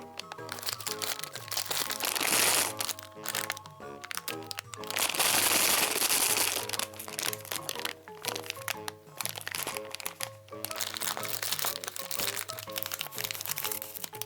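Light background music with a plucked-note tune, over crinkling and crackling of candy packaging being unwrapped, loudest in two bursts about two seconds in and again from about five to seven seconds.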